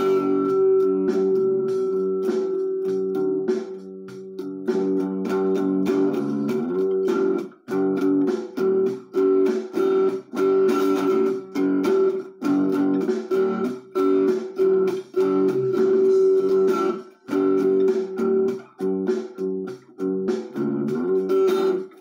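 Guitar music with plucked notes. It is sustained at first, then turns choppy with short breaks between phrases from about a third of the way in.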